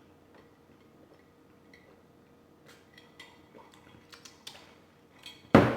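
Small scattered clicks and taps from eating and handling food and utensils during a mukbang, then one loud sharp knock near the end.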